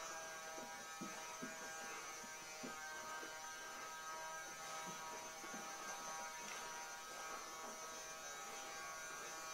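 Quiet, steady electrical hum with a thin high whine over it, broken by a few faint soft taps.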